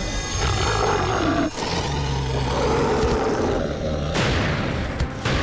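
Film sound effects of two beasts snarling and growling as they fight, with a whoosh about four seconds in and a sharp hit near the end.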